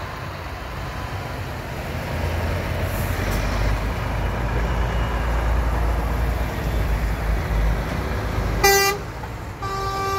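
Heavy lorry diesel engines rumbling as tractor units pass close by in a slow convoy. Near the end a truck horn gives a short blast, then a longer held blast begins.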